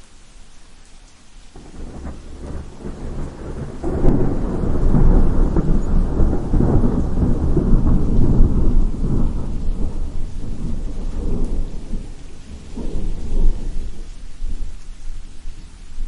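Steady rain with a long rolling peal of thunder that builds about a second and a half in, is loudest through the middle, swells once more near the end and then fades.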